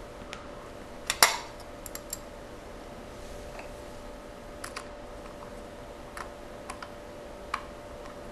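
Scattered light clicks and taps as a SATA hard drive is handled in its drive tray and screws are driven in with a screwdriver. The sharpest click comes about a second in.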